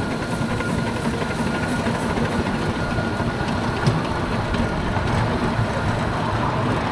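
Romulus-type miniature steam locomotive running along the track, with wheel and rail clatter and faint regular clicks. A thin steady whistle tone sits over it and drops out about four seconds in; the driver takes it for a slightly leaking whistle valve.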